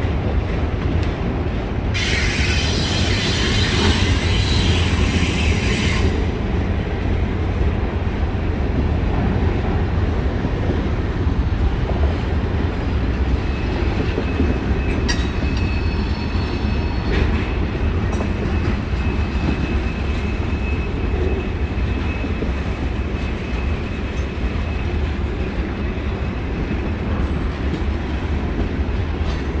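Mixed freight train rolling past, its wheels on the rails making a steady heavy rumble. A rushing hiss rises from about two to six seconds in, and a thin high wheel squeal holds through the middle.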